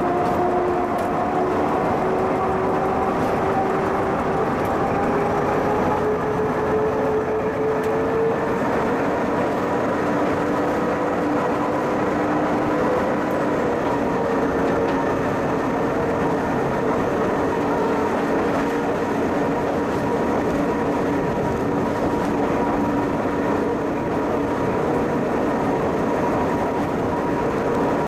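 Pilatus Railway electric rack railcars passing, with a steady drive whine over the running noise of the cogwheel on the rack. The whine rises slowly in pitch over the first several seconds, then holds steady.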